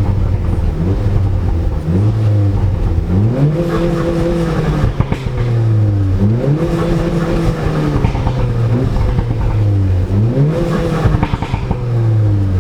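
Audi S1 engine revving hard: the note climbs sharply three times, holds briefly, then slides back down.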